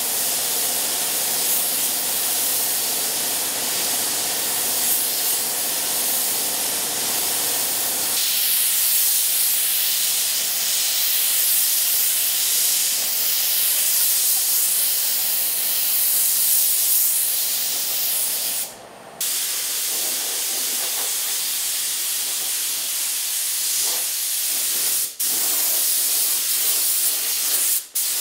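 Gravity-feed paint spray gun hissing steadily as compressed air atomises paint onto the car body. A low hum sits under the hiss for the first eight seconds. The hiss stops briefly three times: once about two-thirds of the way through and twice near the end.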